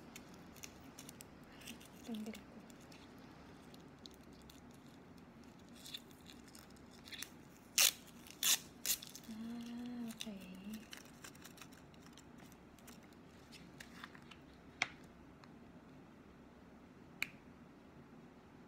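Scattered sharp clicks and taps of a plastic cream jar and its screw lid being handled and turned, the loudest pair about eight seconds in.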